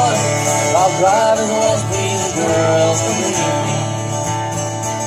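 Live acoustic string band playing a tune: fiddle over two strummed acoustic guitars.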